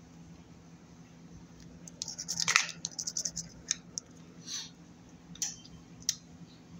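A scratch-off lottery ticket being scratched with a coin: a quick flurry of short scrapes about two seconds in, then a few single scrapes spaced out after it.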